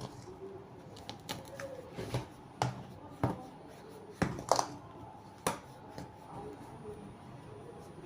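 Dry chin chin ingredients (flour, cocoa powder, sugar, powdered milk) being stirred together in a mixing bowl: a utensil knocks and clicks against the bowl at irregular moments, with soft rustling between.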